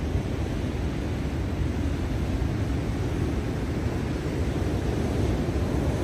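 Rough, stormy ocean surf: breaking waves making a steady low rumbling wash with no separate crashes standing out.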